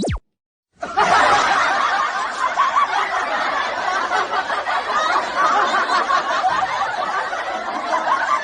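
Laugh-track sound effect: a crowd laughing and chuckling together, starting about a second in, after a quick falling swoosh at the very start.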